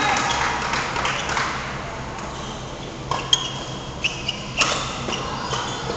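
Badminton rally: rackets striking the shuttlecock several times, starting about three seconds in, each hit a sharp crack with a short ringing ping from the strings.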